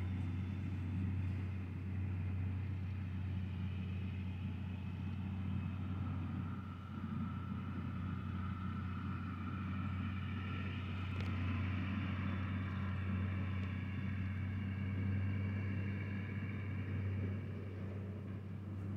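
International 756 tractor running steadily while cutting oats: a constant low engine hum with fainter higher whining tones over it.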